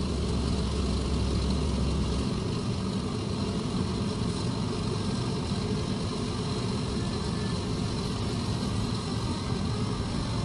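Air Tractor AT-502B's Pratt & Whitney PT6A-34AG turboprop running steadily at ground idle, with a steady high turbine whine over the propeller's low rumble.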